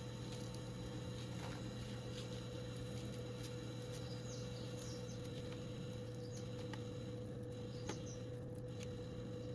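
A steady low hum with a faint steady tone above it, and scattered light clicks and small high squeaky ticks.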